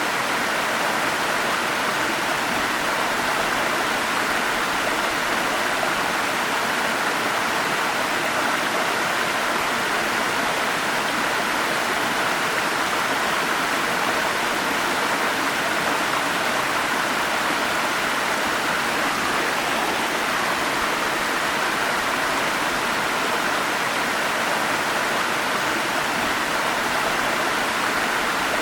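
Forest stream or small waterfall: water flowing and splashing over rocks in a steady, unbroken rush.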